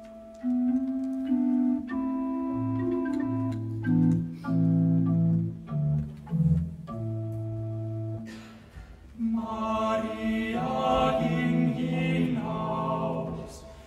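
Slow, steady low chords held and changed step by step for about eight seconds, then a male vocal quartet singing a German Marian carol in close harmony from about nine seconds in.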